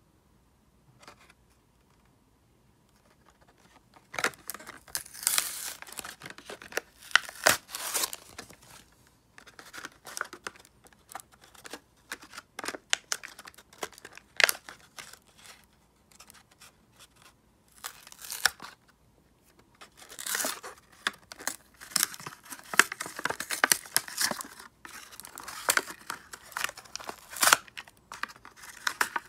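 Cardboard backing of a Hot Wheels blister card being torn and peeled off the plastic bubble by hand, in irregular bursts of ripping and crinkling that begin about four seconds in, with short pauses between.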